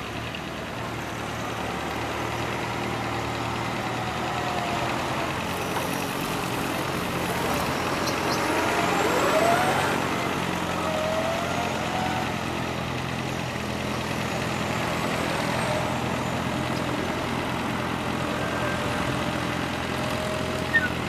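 Fendt Farmer 2DE tractor's diesel engine running steadily under heavy load while pulling a weight-transfer sled, growing louder over the first ten seconds.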